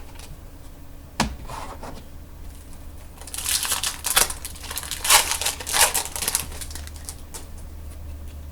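Trading cards and their packaging being handled: a sharp click about a second in, then a few seconds of loud rustling and crinkling strokes, over a steady low hum.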